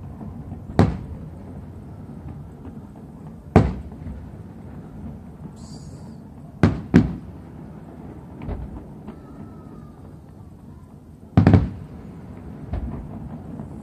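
Aerial fireworks bursting: a series of sharp bangs a few seconds apart, two in quick succession around the middle and the loudest near the end, with fainter pops in between.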